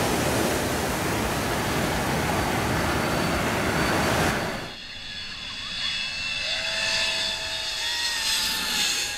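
A loud, steady rush of noise for about the first half, cut off suddenly. Then a jet airliner passing low overhead on approach, its engines giving a whine of several tones that glide slowly in pitch.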